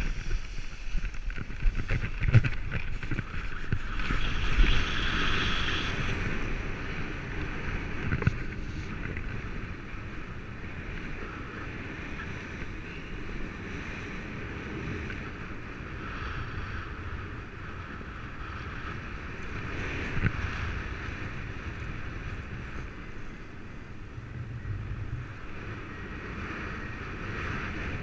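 Wind rushing over the camera microphone of a paraglider during takeoff and flight. It is louder for the first several seconds, with a few knocks, then settles into a steadier rush.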